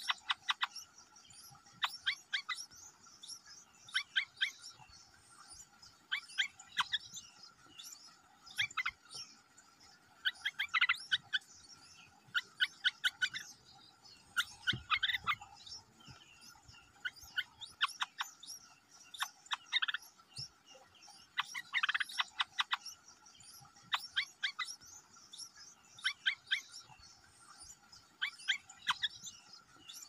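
Nestling songbirds begging: short bursts of rapid, high chirps, repeating about every two seconds. These are the hungry chicks' begging calls while the parent is at the nest with food.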